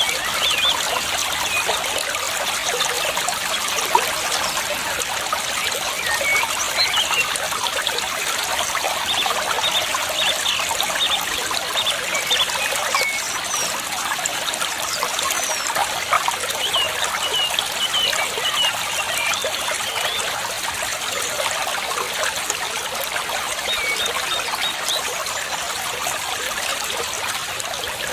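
Water trickling steadily, with short high bird chirps scattered throughout.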